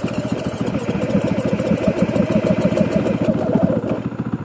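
Enduro motorcycle engine idling steadily, a quick even run of firing pulses.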